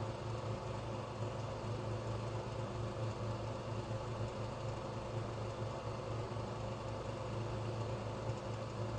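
Steady low mechanical hum with an even hiss above it, unchanging throughout.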